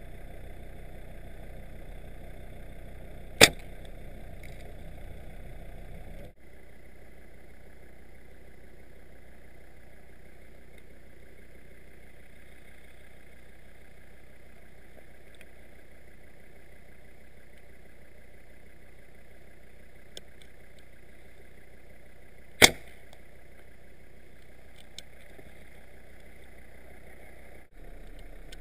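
Two single shots from a gas-powered tranquilizer dart rifle, each a short sharp pop, the first a few seconds in and the second about twenty seconds later.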